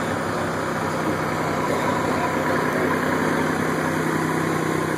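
A vehicle engine idling steadily, an even low hum with no revving or change.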